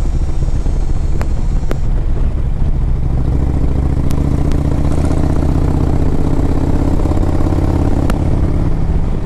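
Harley-Davidson Road Glide's Screaming Eagle 113 cubic inch V-twin running at road speed through a loud exhaust. Its pitch climbs gently from about three seconds in as the bike picks up speed.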